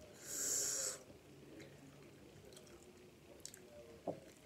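A sharp breath blown out through the mouth, a hiss lasting under a second just after the start. Faint mouth clicks follow, then a single sharp tap about four seconds in as a piece of quesadilla is dipped into a plastic guacamole cup.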